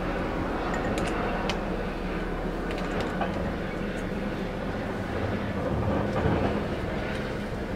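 Light plastic clicks and taps as an aftermarket cold-air intake tube and its sensor are handled and fitted, over a steady low rumble.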